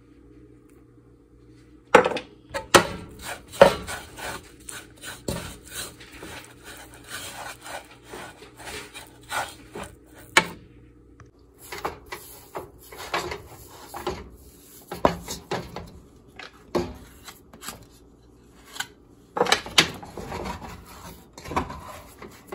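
Wooden spatula scraping and knocking against a metal pan as it stirs a crumbly mung bean flour and treacle dough, in irregular strokes that start about two seconds in, with short pauses. Near the end a plastic scraper scrapes the dough together.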